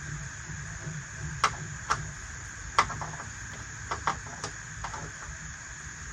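A handful of sharp clicks and taps from small plastic toy kitchen pieces being handled and set down, over a steady background hiss and hum.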